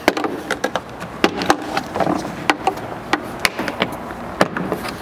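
Plastic trim clips on a Lexus GX 550's rear cargo-opening trim snapping loose as the trim is pulled off by hand: a run of sharp, irregular clicks and snaps.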